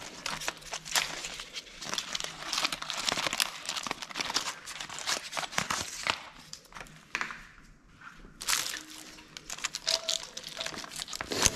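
Wiring harness of a Renault J7R engine being pulled and worked free by hand: plastic conduit, cover and wires rustling and crackling in a dense run of small clicks, with a short lull about two-thirds through.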